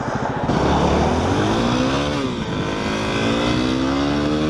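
Yamaha WR250R's single-cylinder engine accelerating from a pull-out: the revs climb, drop at an upshift about two seconds in, then climb again in the next gear.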